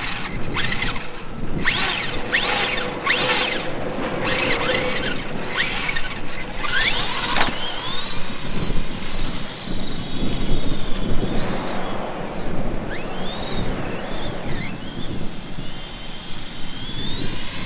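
A small RC toy car drives across concrete, its motor whine rising and falling in pitch as the throttle changes. Several short bursts of noise come in the first few seconds.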